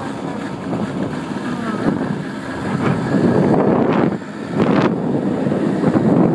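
Wind buffeting the microphone of a moving moped, with the moped's small engine running underneath. The wind rush rises and falls unevenly and drops briefly about four seconds in.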